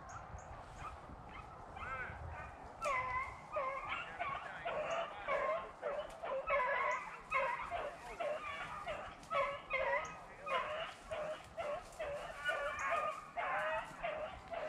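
Beagles baying as they run a rabbit, overlapping calls several times a second, taking off about two to three seconds in: the sign that the hounds are on the rabbit's scent.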